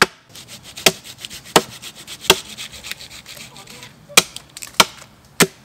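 Small axe chopping into a log: about seven sharp wooden chops, roughly one every 0.7 s, with a pause of nearly two seconds in the middle.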